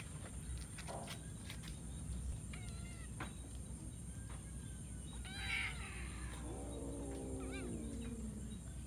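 Cats meowing while they crowd in to be fed: a few short calls about three seconds in, a louder call around the middle, then one long meow that slides down in pitch over the last two seconds. A steady high-pitched drone runs underneath.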